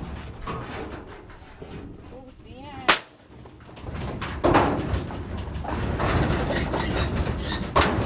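A single gunshot about three seconds in, the loudest sound here. After it comes a stretch of loud, rough noise with a few sharp knocks.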